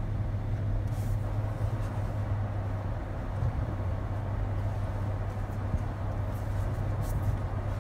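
Car heard from inside the cabin as it runs along: engine and road noise as a steady low hum.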